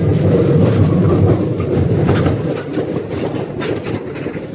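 Railroad park's ride-on train rolling along the track: a steady rumble of wheels on rails with a few sharp clicks, easing off about halfway through.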